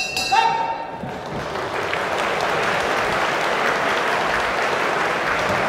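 A boxing ring bell rings right at the start, marking the end of a round, and dies away within about a second. The crowd applauds steadily for the rest.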